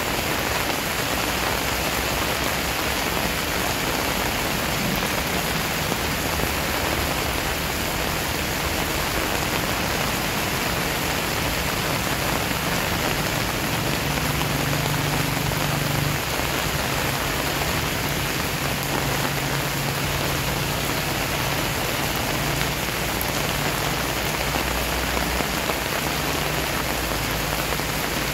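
Steady rain falling on wet paved ground and plant leaves: an even, unbroken hiss of drops.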